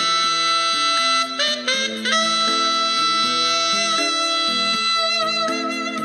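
Background music: a slow instrumental with long held melody notes over a stepping bass line. About four seconds in, a held note wavers with vibrato.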